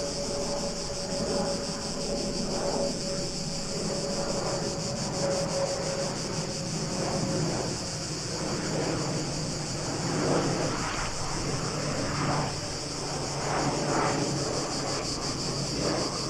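Aeroplane descending to land, heard overhead as a low rumbling hum that swells and fades. Insects keep up a steady high chirring underneath.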